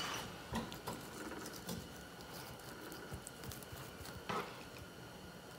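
Knife slicing along a walleye's backbone during filleting: faint, with a few soft clicks scattered through it.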